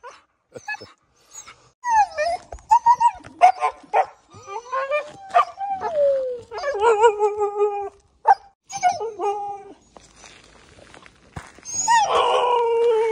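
Siberian husky puppies whining and howling in a string of short and drawn-out pitched calls, some sliding down in pitch, mixed with brief yips and a few sharp clicks. They are excited and impatient to be let out of the car.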